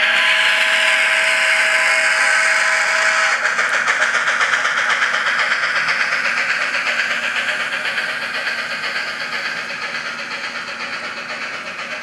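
Steam sound from a SoundTraxx Tsunami decoder in an N scale Union Pacific FEF 4-8-4 model locomotive, played through a small oval speaker: a chime steam whistle held until it cuts off about three seconds in, over hissing, rapid steam chuffing that slowly fades as the locomotive runs away.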